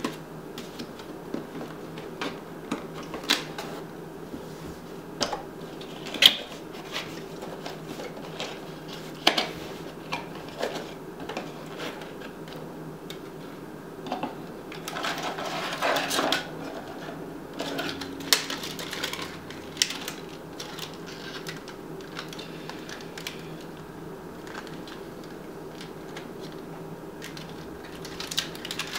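Cardboard and plastic packaging being handled: scattered taps, clicks and rustles as a boxed CPU cooler is unpacked and lifted out, with a longer rustle about fifteen seconds in. A steady low hum runs underneath.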